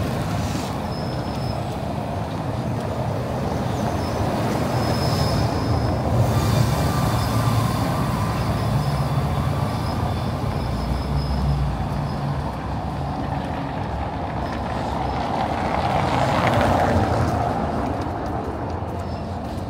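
City street traffic: motor vehicles running close by. One grows louder as it passes about sixteen seconds in, then fades.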